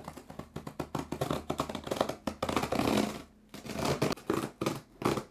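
Packing tape on a cardboard box being slit along the seam with a knife: a rapid crackling, rasping run of tape and cardboard noise, broken by a short pause about three and a half seconds in before more rasping.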